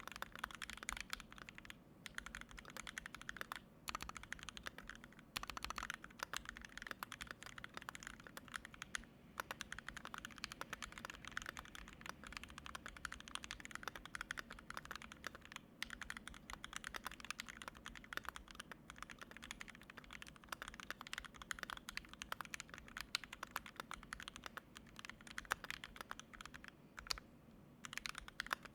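Steady typing on a KBD67mkII mechanical keyboard with 43 Studio toy switches, a brass plate and GMK keycaps: a dense run of keystroke clacks with a few short pauses, one near the end.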